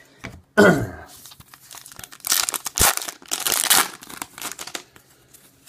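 Trading-card pack wrapper being torn open and crinkled by hand, in several loud crackling bursts from about two to five seconds in, with a sharp click in the middle. A short, loud sound falling in pitch comes just under a second in.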